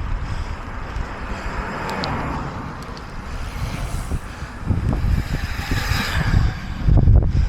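Wind rumbling on the microphone while road traffic swells past and fades twice, about two seconds in and again around six seconds.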